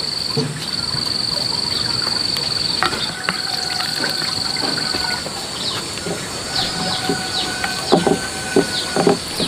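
Outdoor ambience: an insect's steady, high, finely pulsing trill through the first half, with birds chirping in short falling notes later on. A few sharp knocks come near the end.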